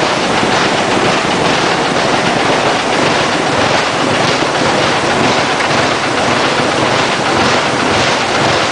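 Hino K13C turbocharged inline-six engine, converted from diesel to run on CNG with spark ignition, running loudly and steadily on test.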